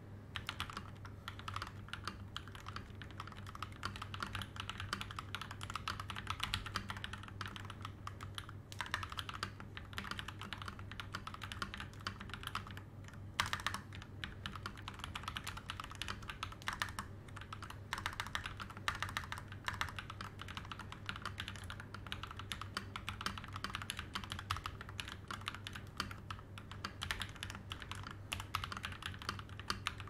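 Budget custom mechanical keyboard being typed on continuously at a steady, fast pace: a dense run of key clacks with no breaks.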